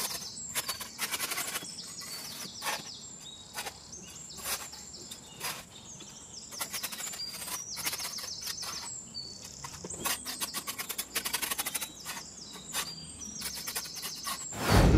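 Birds chirping, with short high calls, falling whistles and several fast rattling trills.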